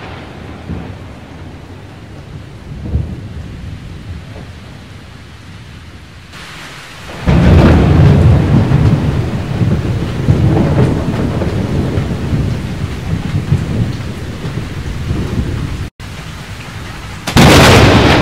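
Thunder-like rumbling sound effects: a low rumble at first, then a loud, heavy rumble from about seven seconds in that breaks off abruptly, and a sudden loud boom near the end.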